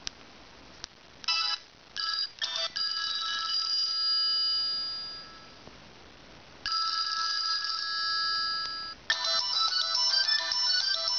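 A Sony Ericsson Z300a flip phone's speaker playing its built-in polyphonic ringtones. A few short electronic tone bursts come first, then a held chord that fades away. After a short pause a second held chord stops abruptly, and near the end a fast, busy tune of many notes begins.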